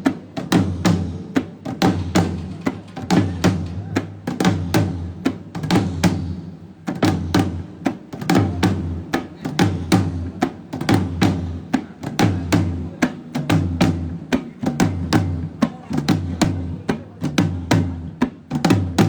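Drums playing a fast, steady rhythm over a low, pulsing bass, with a brief break a little under seven seconds in, during a sound check.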